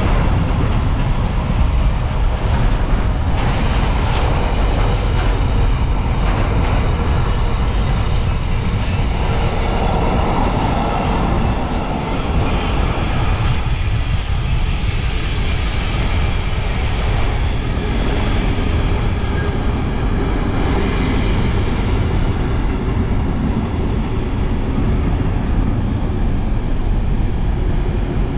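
Long container freight train rolling past on the adjacent track: a steady, continuous rumble of wagons running on the rails.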